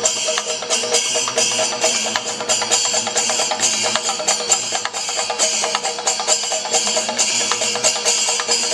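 A Kerala temple percussion ensemble (chenda melam): chenda drums beaten fast and dense, with small cymbals ringing throughout. A few steady held pitches run underneath the drumming.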